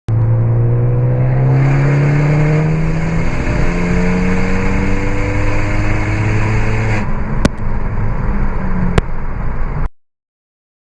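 Turbocharged Ford Focus ST 2.0-litre four-cylinder accelerating under load, its pitch climbing, with a gear change about three seconds in. A loud hiss from the external wastegate dump tube runs during the pull and stops when the throttle is lifted about seven seconds in. Two sharp cracks follow before the sound cuts off.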